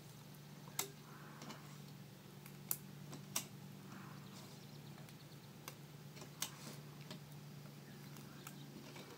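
Scattered light clicks and taps as rubber loom bands are stretched onto the plastic pegs of a Rainbow Loom with a hook, over a faint steady low hum.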